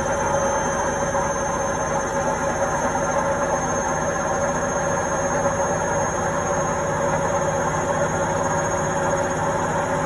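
Indesit front-loading washing machine running: a steady, unbroken machine hum with a faint high whine over it.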